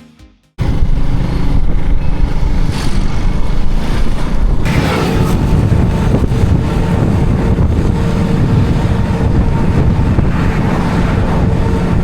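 A road vehicle on the move, with wind rushing over the microphone; it starts abruptly about half a second in and stays loud and steady.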